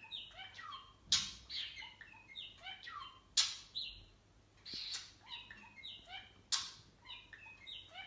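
Pet budgerigar chattering: a busy run of quick chirps and warbles, broken by several short, sharp, louder calls.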